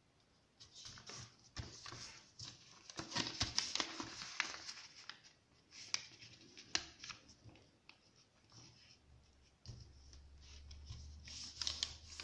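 Sheet of origami paper rustling and crackling as it is folded and creased by hand on a table, in a quick run of short crinkles busiest a few seconds in. A faint low hum comes in near the end.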